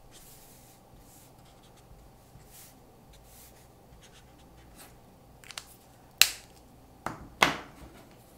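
Faint scratching and tapping of a Prismacolor marker's felt tip dabbing short strokes on paper. Near the end come a few sharp plastic clicks as the marker is capped and put back with the others; two of the clicks are much louder than the rest.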